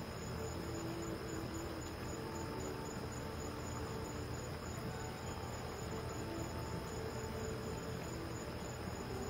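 Crickets chirping steadily in a fast, even, high-pitched trill, over a low steady rumble.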